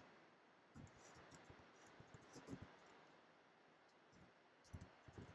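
Faint computer keyboard keystrokes, a few short clicks at a time in scattered small clusters, against near silence.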